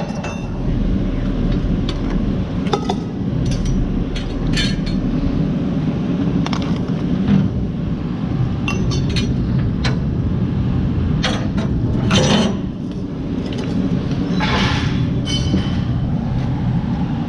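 Scattered metallic clinks and clanks of scrap metal being handled and dropped, a dozen or so irregular strikes with a brief ring, the loudest cluster about twelve seconds in. Under them runs a steady low rumble.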